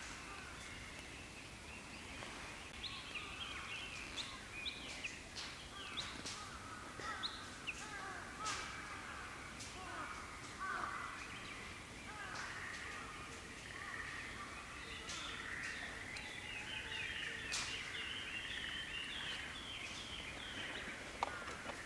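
Wild songbirds singing in a dense chorus: many short chirps and trills overlap throughout.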